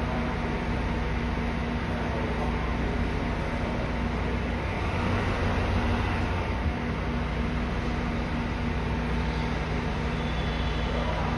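JR East KiHa E130-series diesel railcar running at a station platform: a steady low diesel drone, swelling with extra rail and engine noise about five seconds in as the train gets moving.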